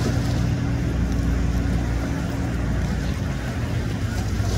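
Motorboat engine running, a steady low drone with a light wash of water noise.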